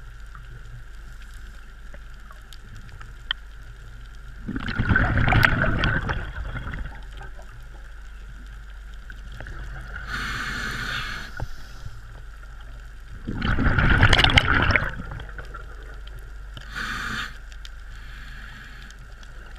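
A scuba diver breathing through a regulator underwater: two loud bubbling exhalations, each about two seconds long, alternate with two shorter, fainter hissing inhalations, over a steady faint hiss.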